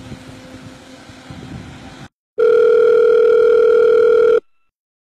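Faint outdoor background, then after a cut a loud, steady electronic telephone ring tone. It sounds once for about two seconds, stops for about a second, and starts again near the end.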